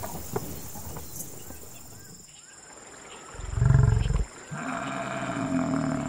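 Buffalo calling: a short, deep, loud grunt about three and a half seconds in, then a longer, higher bellow lasting about two seconds near the end.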